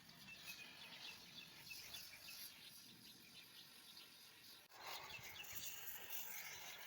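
Faint outdoor background with small high chirps. About two-thirds of the way through, a louder steady hiss starts suddenly.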